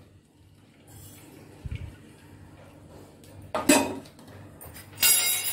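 Metal kitchen utensils clinking against a steel mesh strainer: a sharp clink a little past halfway, then a longer metallic scraping clatter near the end.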